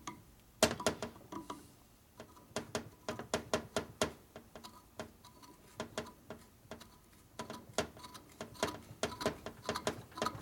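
Half-inch hand reamer, held in a drill chuck and turned by hand, cutting through a tight hole in metal: irregular sharp metallic clicks, a few a second, sparse at first and closer together from about two seconds in.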